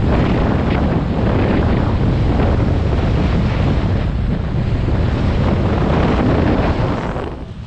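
Loud wind buffeting a GoPro HERO7 Black's microphone at speed on a mountain bike, a rough, rushing noise heavy in the low end. It eases briefly near the end.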